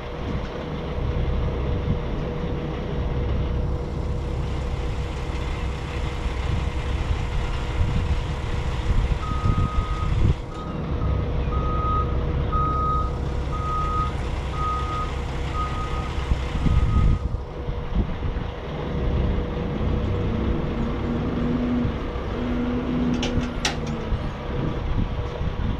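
Steady low rumble of an idling diesel engine, with a vehicle's backup alarm beeping about once a second for several seconds in the middle, and a brief clank near the end.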